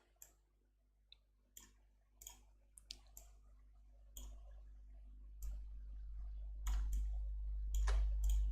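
Computer mouse clicking: scattered single clicks, about a dozen, with a low hum that swells from about halfway through and grows louder toward the end.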